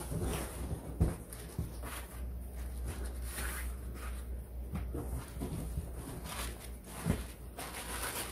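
Plastic-wrapped stroller parts rustling and knocking as they are handled and pulled out of a cardboard box, with a dull thump about a second in and another near the end.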